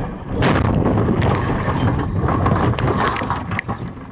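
A truck crashing, heard from inside its cab: a loud impact about half a second in, then about three seconds of crunching, rattling and scraping with sharp knocks as the cab is thrown about, dying down near the end.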